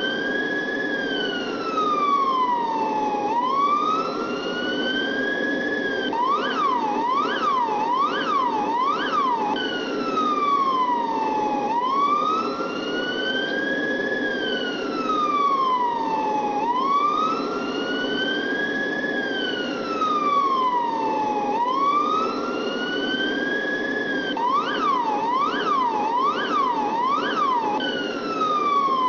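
Electronic police siren in a slow wail, its pitch rising and falling about every three seconds. It switches twice to a fast yelp of about four quick whoops, around six seconds in and again near the end, over a steady hum.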